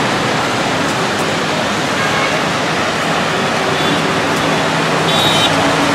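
Heavy rain falling steadily in a downpour: a dense, even hiss of drops on water and hard surfaces.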